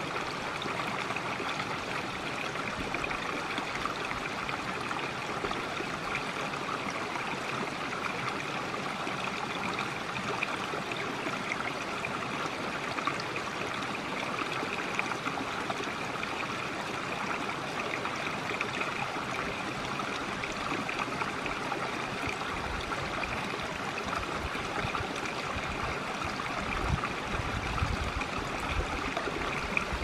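Shallow rocky mountain brook babbling over stones, a steady, unbroken trickling rush. A few low rumbling bumps come in near the end.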